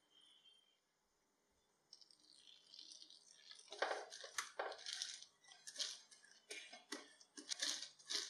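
Hands smoothing an oiled plastic sheet over a wooden board: crinkling and rustling that starts about two seconds in, then turns into irregular sharp crackles, several a second.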